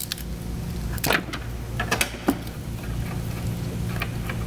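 Socket wrench on an extension loosening a timing belt cover bolt: a few scattered sharp clicks and clinks of metal, about a second in, around two seconds and once near the end, over a steady low hum.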